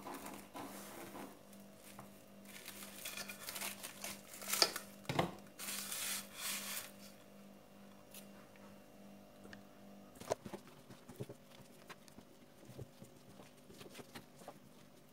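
Plastic cling film rustling and crinkling over a metal tray of dough as the tray is handled, with one sharp knock of the tray about five seconds in. Later, a few soft taps and ticks.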